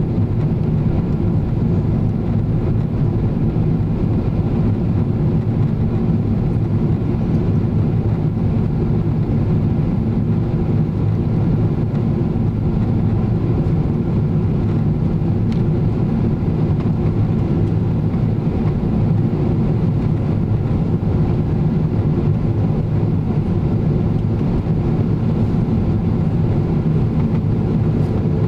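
Steady cabin noise inside a Boeing 777-300ER in descent: an unbroken low drone of its GE90 engines and the air rushing past the fuselage, with a faint steady hum in it.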